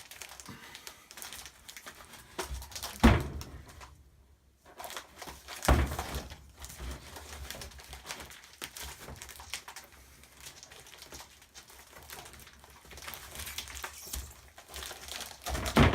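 Cured fiberglass shell being pried and peeled off its mold by hand: scattered crackling and clicking as the layers let go, with two loud thunks about three and six seconds in.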